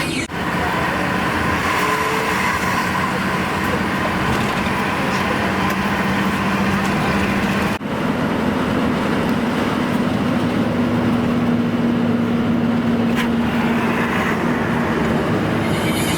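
Road vehicle running, a steady mix of engine hum and road noise. It drops out for an instant twice, once near the start and once about eight seconds in.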